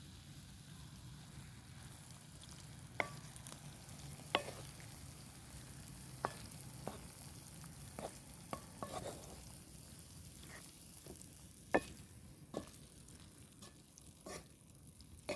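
Food frying in a pan with a steady sizzle, while a utensil stirs it and clinks sharply against the pan a dozen or so times at irregular intervals.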